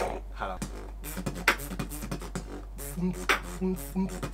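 Beatboxing: sharp mouth-made percussion clicks and hits, joined about three seconds in by short hummed bass notes in a rhythm.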